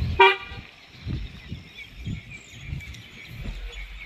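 Birds chirping faintly over soft, regular footsteps on a dirt road. Just after the start comes a short, loud pitched call, the loudest sound here.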